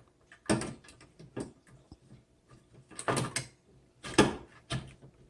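The top cover of a 1963 Olympia SM7 portable typewriter being fitted back onto the machine: a run of separate clicks and clunks, the loudest a little after four seconds in.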